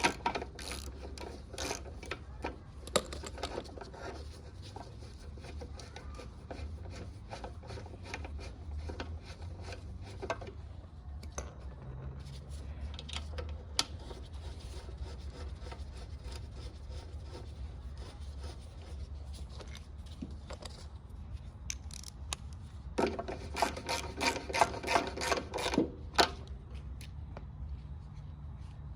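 Small metal clicks and rubs as three bolts are fitted and tightened on a Briggs & Stratton lawn mower carburettor, with a quick run of clicks lasting about three seconds near the end. A steady low hum runs underneath.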